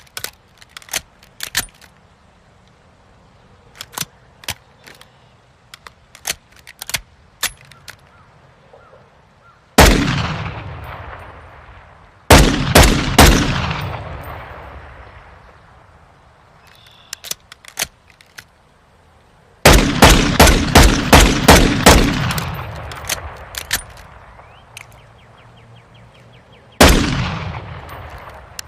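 Pistol chambered in .50 GS, as a gun sound effect. It opens with a series of sharp metallic clicks of the gun being handled, then fires: one shot, three quick shots, a rapid string of about ten shots, and a last single shot, each with a long echoing tail.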